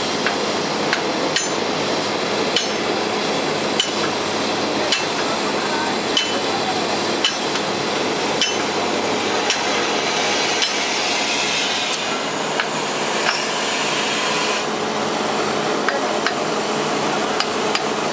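Standing X class rack-tank steam locomotive hissing steadily, with sharp metallic clinks that ring briefly, about one a second. A band of extra hiss joins about ten seconds in and cuts off suddenly near fifteen seconds.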